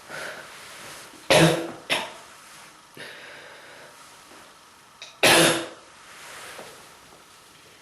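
A person coughing hard: a loud cough about a second in with a smaller one just after it, and another loud cough about four seconds later. It is the cough of a strong bronchitis.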